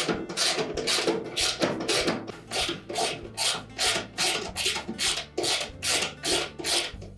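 Socket ratchet working in quick, even back-and-forth strokes, about three rasping clicks a second, as it runs bolts down into the washer's damper base.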